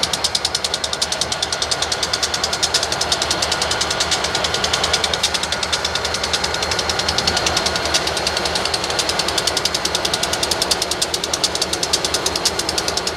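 A train rolling past with a fast, even rhythm of sharp clicks, about seven a second, over a steady rumble.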